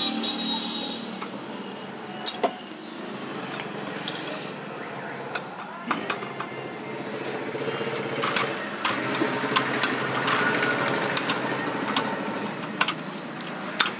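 Scattered light metallic clicks and clinks of steel bolts and a socket tool against the clutch assembly of a Super Splendor motorcycle engine, as the three clutch plate bolts are started and run down by hand.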